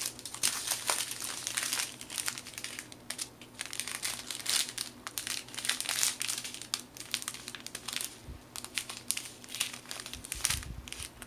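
Plastic packaging of a diamond painting kit crinkling and rustling as it is handled and unwrapped, in irregular crackly bursts, with a couple of soft low bumps near the end.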